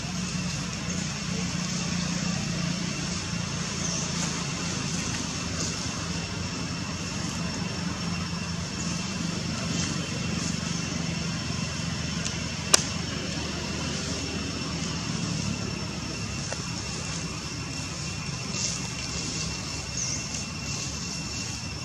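Steady outdoor background noise: a low engine-like rumble under two thin, steady high whines, with one sharp click about thirteen seconds in.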